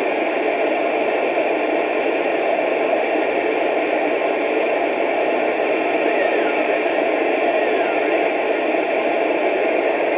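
Two-way radio speaker hissing with steady static, a loud even rush with no voice in it, which cuts off suddenly near the end as the squelch closes.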